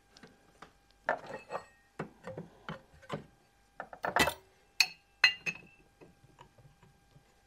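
Metal parts of an aluminium test piece and pull-test rig being handled and fitted into a bench vise: a run of small knocks and clicks, then a few sharper metallic clinks that ring briefly, around four to five and a half seconds in.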